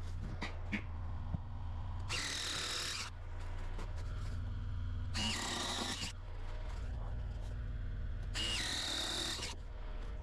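Power drill boring holes through a pressure-treated sill plate: three runs of about a second each, spaced a few seconds apart, over a steady low rumble. A few light knocks come before the first run.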